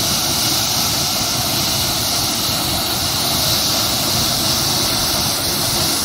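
A 34-metre waterfall plunging into its rock pool: a steady rushing of falling water.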